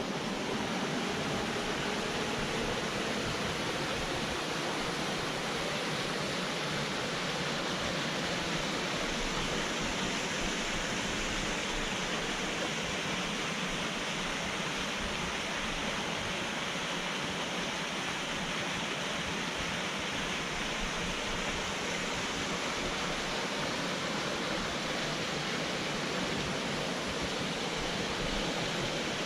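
Steady, even rush of flowing water from a mountain stream, holding at one level throughout.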